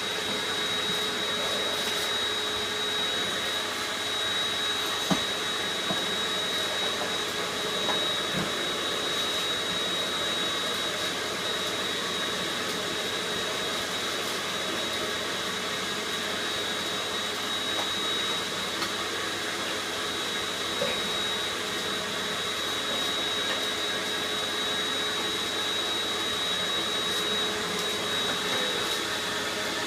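Vacuum cleaner running steadily with a high, even whine. A few brief clicks come through the motor noise.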